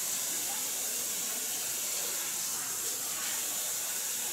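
Steady, even hiss of room tone with no distinct sound events.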